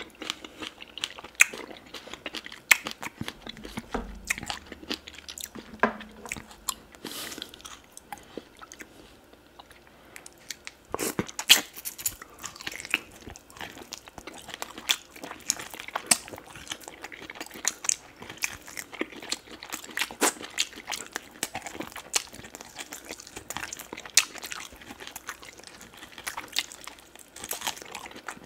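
Close-miked eating sounds: a man chewing and biting meat off oxtail bones from a pepper soup, a run of irregular sharp mouth clicks and bites, loudest about eleven seconds in.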